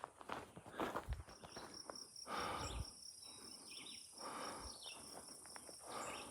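An insect's steady, high, finely pulsed trill, starting about a second in. Over it come a hiker's heavy breaths every couple of seconds.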